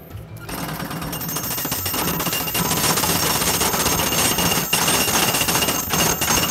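Truck-mounted Altec hydraulic ground rod driver hammering a ground rod deeper into the soil. It is a rapid, continuous pounding that starts about half a second in and grows louder, with one short break partway through. The rod is being driven deeper to lower the ground's resistance.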